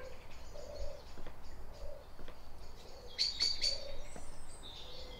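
Birds chirping: short high chirps, bunched together about three seconds in, with soft low notes repeating about once a second throughout.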